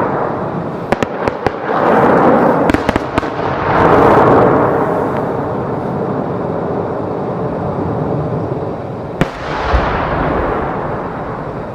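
Aerial fireworks shells bursting, deep booms rolling and echoing one into the next, with a cluster of sharp crackling pops between about one and three seconds in and another sharp bang about nine seconds in.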